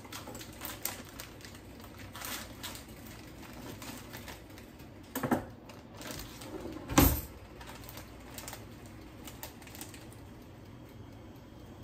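Kitchen handling sounds while green beans go into an electric food steamer: a plastic bag being handled, with scattered light clicks and taps. Two sharper knocks come about five and seven seconds in, the second the loudest.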